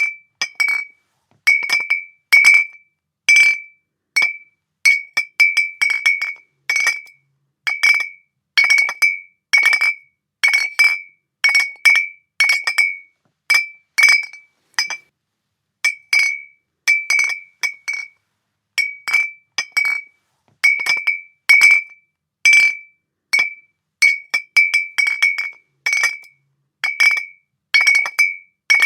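Glass bottles clinking against each other over and over, irregularly, about one or two clinks a second. Each clink rings briefly at one clear high pitch, with gaps of silence between.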